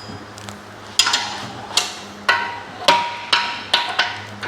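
Galvanized steel rack parts clanking against each other as they are handled during dismantling: about seven sharp metallic knocks, each ringing briefly.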